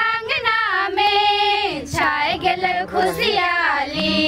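A high voice singing a melody, holding long notes and sliding between them.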